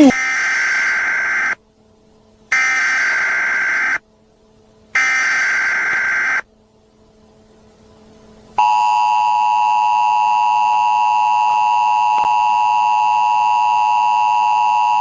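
Emergency Alert System tones: three harsh, buzzy digital data bursts of about a second and a half each, with short gaps between them. After a pause, about eight and a half seconds in, the steady two-tone attention signal starts and holds.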